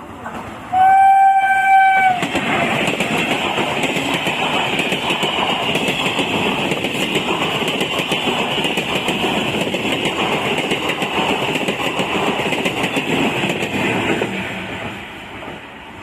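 A locomotive horn sounds one steady blast of about a second, then a train passes at high speed for about twelve seconds, its wheels clattering on the rails, fading near the end.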